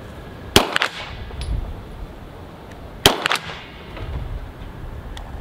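Two shots from an Arsenal Strike One pistol about two and a half seconds apart, each with a short tail of further cracks right after it, and wind rumbling on the microphone in between.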